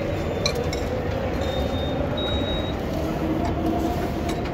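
Steady din of a busy metro station concourse with people talking. A click sounds about half a second in, then two short high beeps from a ticket gate's card reader.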